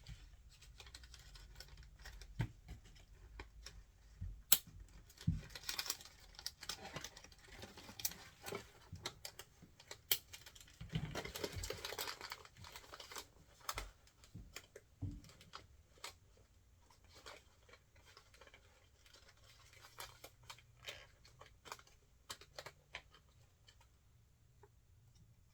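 Small plastic toy packets being torn open and handled: bursts of crinkling and tearing plastic, the longest about eleven seconds in, amid many scattered light clicks and taps.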